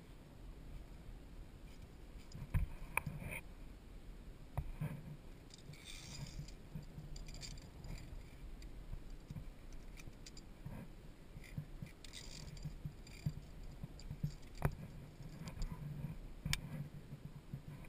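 Via ferrata lanyard carabiners clinking and scraping against the steel safety cable as the climber moves up, heard as scattered metallic clicks and knocks over low rumbling handling noise.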